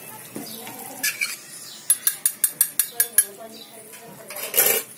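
Wooden stick stirring boiling sugar syrup in a metal pot and knocking against the pot's side in a quick run of about eight sharp taps. A louder scrape comes near the end.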